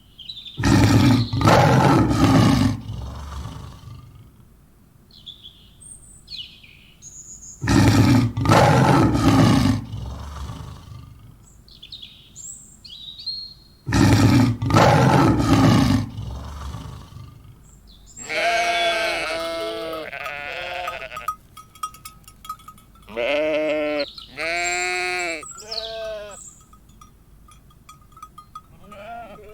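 A big cat roars three times, each roar lasting two to three seconds, about six seconds apart. Then, in the last third, a sheep-like bleating comes in two runs of quavering calls.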